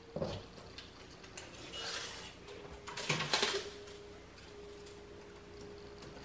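Metal tape measure being handled and its blade pulled out, with two short scraping slides about two and three seconds in and a few light clicks.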